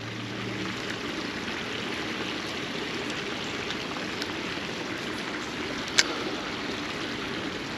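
Water of a small shallow stream running steadily, with one sharp click about six seconds in.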